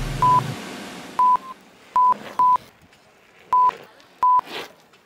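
Six short, loud beeps, all on one steady pitch and irregularly spaced, of the kind used as censor bleeps. They sound over the end of a backing track whose bass cuts off about half a second in, while the rest of it fades away over the next two seconds.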